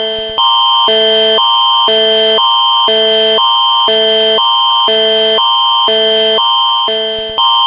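Canadian Alert Ready emergency attention signal: two chords of steady tones alternating about every half second, with a high tone held throughout. The signal briefly drops and restarts about half a second in, and again near the end.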